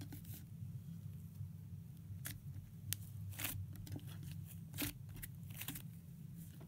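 Fingers poking and squeezing a lump of yellow slime, making irregular small clicks and pops, over a steady low hum.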